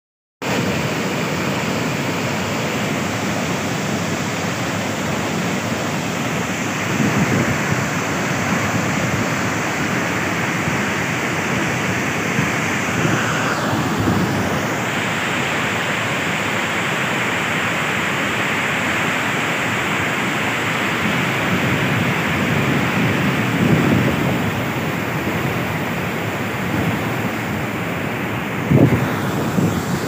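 Duduma waterfall's cascades rushing loudly and steadily, the water in spate, starting abruptly about half a second in. Wind buffets the microphone now and then.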